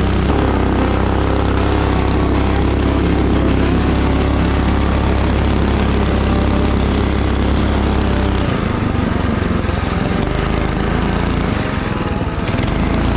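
Go-kart's Predator 212 single-cylinder engine running steadily. The steady note breaks up and turns uneven about eight seconds in.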